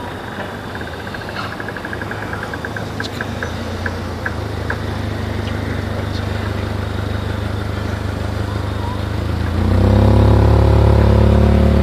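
A steady motor drone with a low, even pitch that slowly grows louder and then gets suddenly louder about ten seconds in. A run of light ticks, slowing down, comes near the start.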